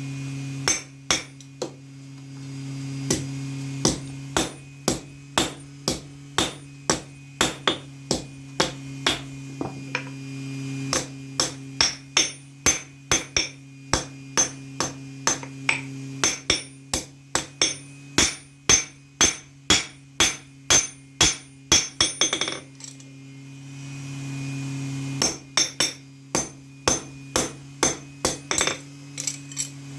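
Hand hammer striking steel on an anvil while forging a knife blade: sharp ringing metal blows, about one to two a second, in runs broken by a pause of a couple of seconds in the last third. A steady low hum runs underneath, dropping out at times.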